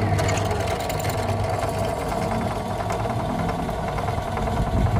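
Drill press motor running steadily while its twist bit drills into steel to bore out a broken bolt.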